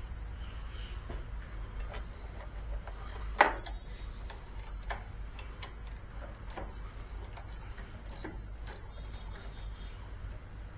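Scattered small metallic clicks and taps of hands and tools working on a lawn tractor's wiring and battery parts, with one louder clank about a third of the way in, over a steady low hum.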